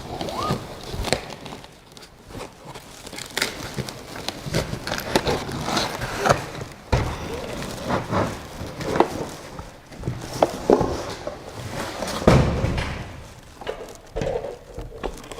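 Unboxing handling noise: irregular knocks, clicks and rustles as printer parts and packing are lifted out and set down, with a heavier thump about twelve seconds in.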